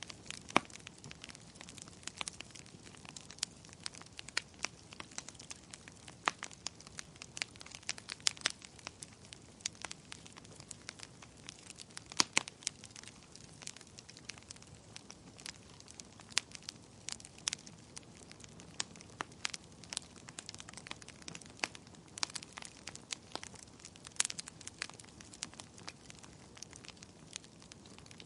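Fireplace fire crackling, with irregular sharp pops and snaps over a soft steady hiss, a few of the pops louder than the rest.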